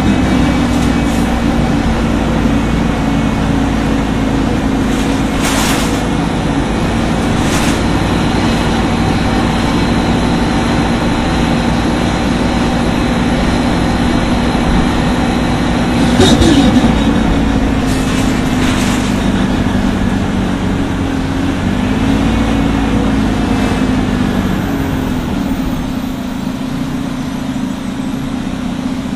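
Detroit Diesel Series 50G natural-gas engine of an Orion V CNG transit bus running steadily. Its pitch drops sharply about sixteen seconds in, then rises and falls again a few seconds later, with a few brief sharp noises scattered through.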